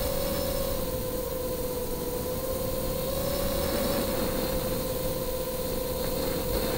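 FPV tricopter's brushless motors and propellers whining steadily at cruising throttle, one held tone that wavers slightly, over a rush of wind and hiss.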